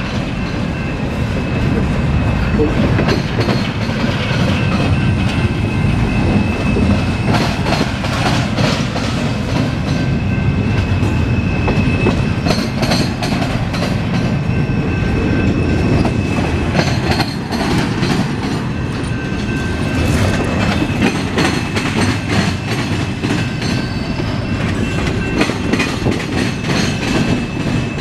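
Double-stack container well cars of a CSX freight train rolling past on a curve: continuous heavy rumble with wheels clacking over rail joints and a steady high squeal of wheels against the curving rail.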